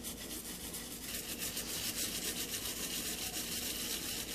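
Stiff plastic-bristled brush scrubbing a 2009 MacBook Pro logic board wet with pure alcohol, a fast scratchy rubbing of rapid back-and-forth strokes. It is scrubbing corrosion and sugary Gatorade residue off the board.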